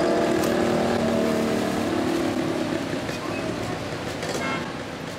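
Street traffic noise from a busy road, with a few steady tones that fade out over the first couple of seconds. The whole sound slowly gets quieter.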